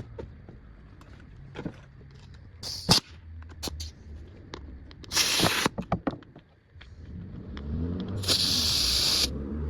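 Three bursts of hissing, the longest lasting about a second near the end, between scattered clicks and knocks of workshop handling.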